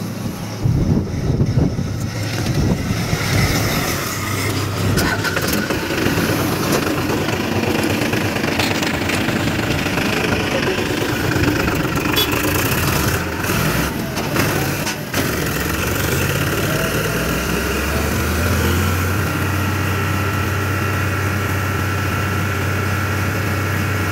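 Powertrac 47 tractor's diesel engine running, its pitch shifting unevenly through the first two-thirds. After that it settles into a steady, even drone as the tractor is driven along.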